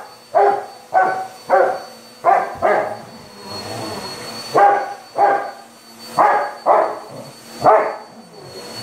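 Rottweiler barking excitedly at an upright vacuum cleaner: short, loud barks about two a second, with a brief pause just past the middle. The vacuum's motor hums steadily underneath.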